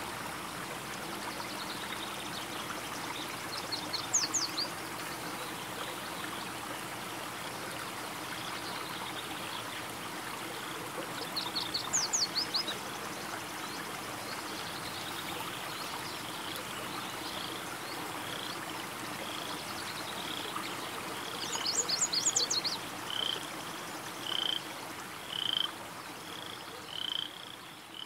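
A chorus of frogs calling in a steady haze. Three short bursts of fast, high chirps stand out, and over the last several seconds a single high peep repeats about once a second.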